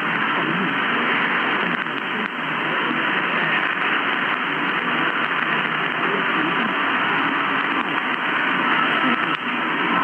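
Weak long-distance medium-wave signal on 1251 kHz heard through an AOR AR5000 communications receiver in LSB mode: steady, muffled static and hiss with a faint voice buried underneath.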